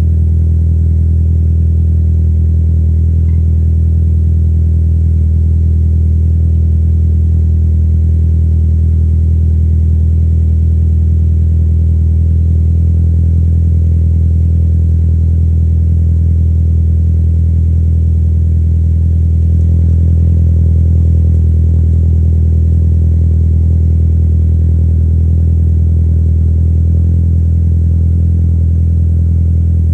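2020 Subaru Outback 2.5i's flat-four engine idling through a Nameless 5-inch muffler-delete exhaust after a cold start. It is a steady, deep exhaust drone that swells slightly about twenty seconds in.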